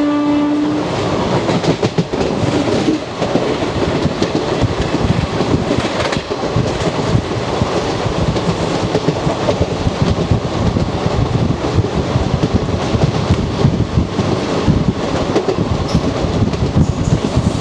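The WAP4 electric locomotive's horn ends with a steady note less than a second in. After that, the ICF coach's wheels rumble and clatter continuously over the track, heard from inside the leading coach behind the locomotive.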